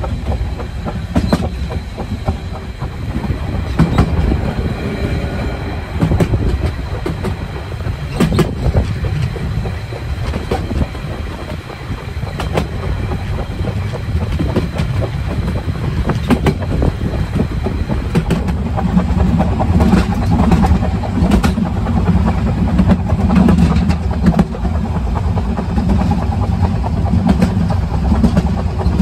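Narrow-gauge train coaches running on the move: a steady low rumble of the wheels with irregular sharp clicks over the rail joints, growing louder and heavier in the second half.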